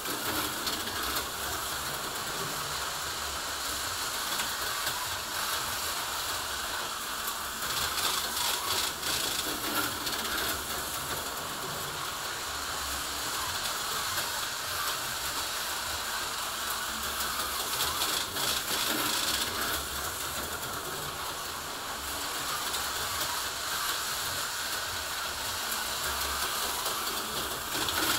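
HO-scale model train running around the layout track: a steady whirring and rattling of its motor and wheels on the rails, clattering louder a couple of times.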